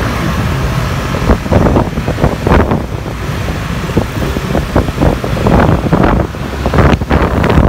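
Wind buffeting the microphone of a moving motorcycle in irregular gusts, over a low road and engine rumble.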